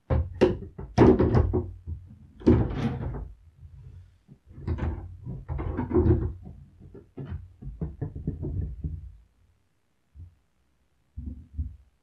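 Wooden beehive frames knocking and clattering against each other and the hive's rails as they are pushed along and lifted out. The knocking is busiest in the first nine seconds or so, with a couple of fainter knocks near the end.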